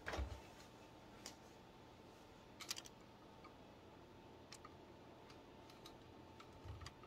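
Near silence broken by a few faint plastic clicks and a soft thump just after the start, from hands handling the open Epson XP-15000 printer's housing; a brief cluster of clicks follows a few seconds in and another soft knock comes near the end.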